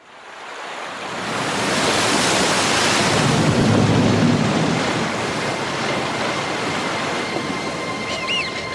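Water splashing and running: meltwater pouring off the edge of sea ice into the sea, rising in the first second or two and then holding steady.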